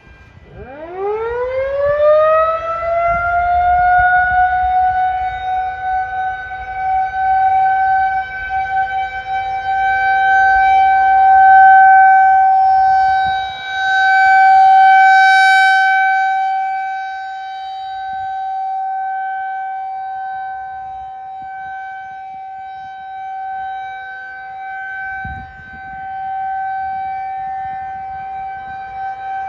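Federal Signal 2001-130 electromechanical siren winding up, its pitch rising quickly from low to a steady single tone within about three seconds. It then holds that tone for the Alert signal, loud and swelling and fading every few seconds as the rotating siren sweeps past.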